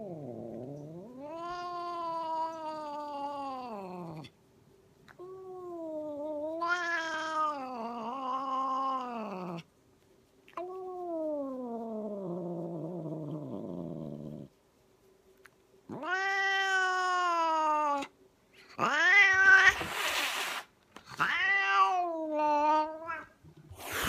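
Domestic cat giving a string of angry, drawn-out yowls, about seven long calls that waver and slide in pitch while its head is being stroked. The last few yowls are louder, and harsh noisy bursts break in among them near the end.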